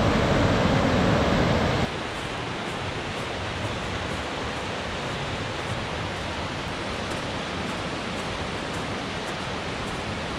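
A rocky mountain creek rushing, loud for about two seconds, then a steadier, quieter rush of water.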